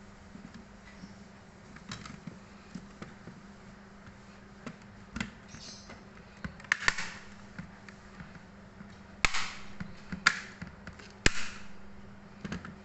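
Plastic clicks and knocks as a netbook's bottom cover is fitted back and pressed into place, with the loudest snaps between about 7 and 11 seconds in. A faint steady low hum runs underneath.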